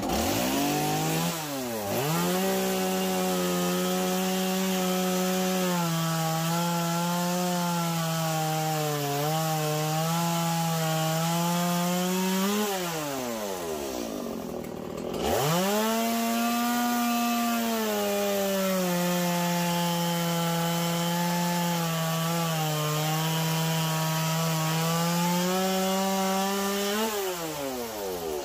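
Chainsaw cutting a wedge out of a western red cedar block: the engine revs up and holds steady under load through the cut, drops back about twelve seconds in, then revs up again for a second cut of about eleven seconds and drops back near the end.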